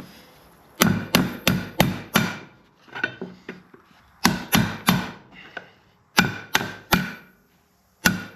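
Hammer blows on metal in quick runs of three to five strikes, with short pauses between the runs.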